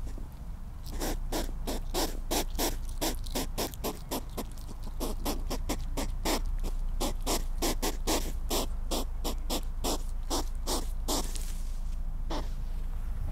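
Pet African pygmy hedgehog huffing: a rapid series of short, sharp puffs, about three a second, for some ten seconds, then one more near the end. Huffing like this is the hedgehog's defensive sound when it is disturbed.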